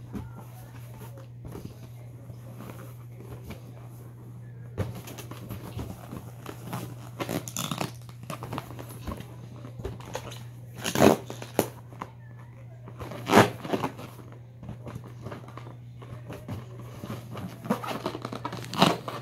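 A capuchin monkey playing with rubber balloons: scattered short handling and squeaking sounds from the balloons and the monkey. Several louder ones come in the second half, over a steady low hum.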